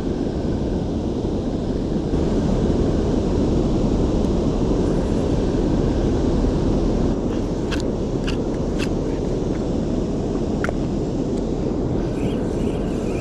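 Steady, loud low rushing roar of river water pouring over a dam spillway. A few light clicks from the spinning reel being handled come around the middle.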